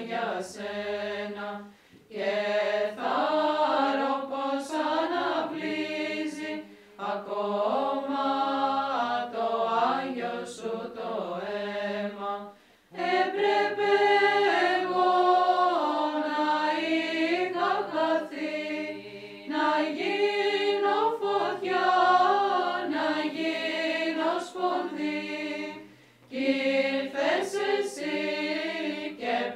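A choir of nuns singing a Byzantine hymn in women's voices, the melody moving over a steady held drone note, in phrases separated by short pauses.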